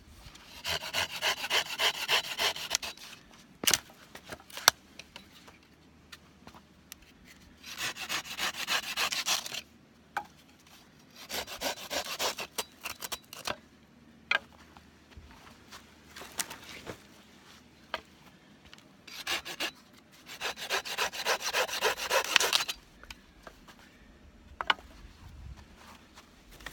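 Hand saw cutting firewood, in four bursts of quick back-and-forth strokes about two seconds each, with a few sharp knocks in between.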